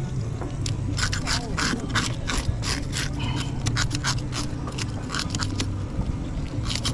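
Quick repeated scraping strokes, about three a second, starting about a second in: a blade or scaler scraping the scales off a mangrove snapper.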